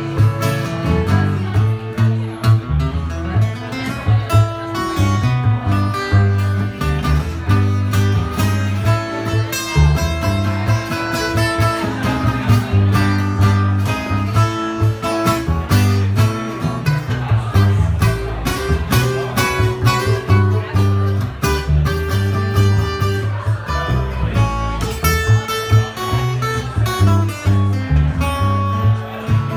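Acoustic string trio playing an instrumental passage: bowed fiddle over strummed acoustic guitar and plucked upright bass.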